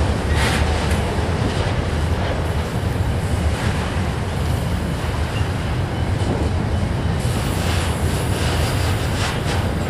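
Slow freight train rolling past with a steady low rumble.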